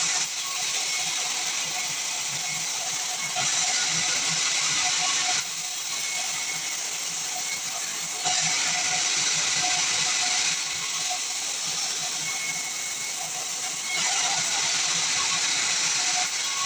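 Band sawmill running and cutting through pine, a steady high hissing whine that steps abruptly louder and softer several times.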